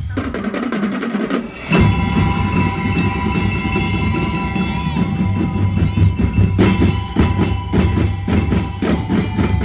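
Drum and lyre band playing: marching drums and bass drum beating under ringing bell-lyre notes. The drumming drops out briefly about a second and a half in, then comes back loud.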